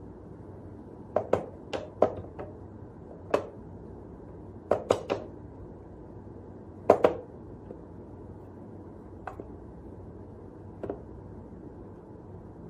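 Wooden whack-a-mole cat toy clacking as a cat plays with it, pressing the paw-shaped levers and batting the popping mice: sharp wooden clicks and knocks, some in quick pairs and threes, with pauses between and the last few fainter.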